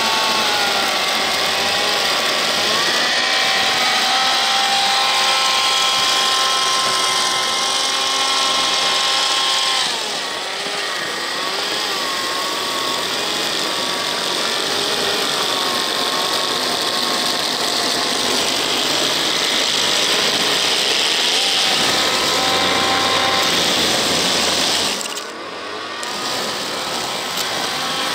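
Electric motors of a 3D-printed RC tracked snow machine and its snowblower attachment whining as it throws snow, the pitch wavering with load. The whine eases off briefly about ten seconds in and again near the end.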